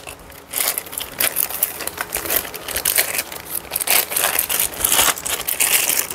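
Packaging being handled: irregular crinkling and rustling that starts about half a second in.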